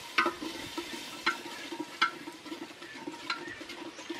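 Long steel spoon stirring and scraping masala in a steel cooking pot, clinking sharply against the metal about four times, roughly once a second.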